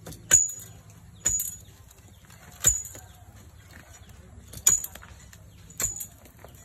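Steel digging bars striking into a hard-packed termite mound: five sharp metallic clinks spaced about one to two seconds apart, each with a brief ring.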